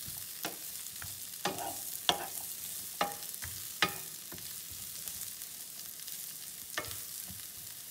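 Broccoli florets and sliced carrots sizzling in oil in a nonstick frying pan over medium heat, a steady hiss. A wooden spoon stirring them knocks against the pan about every second for the first four seconds, then once more near the end.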